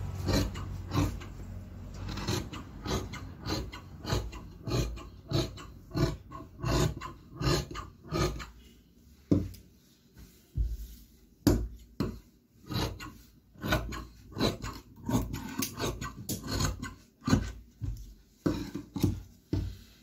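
Large tailor's shears cutting through trouser cloth: a steady run of short snips, a little under two a second, with a brief pause about halfway.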